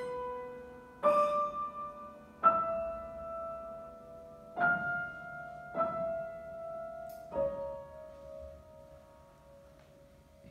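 Grand piano played slowly: five chords struck a second or two apart, each left to ring, the last fading away over the final few seconds.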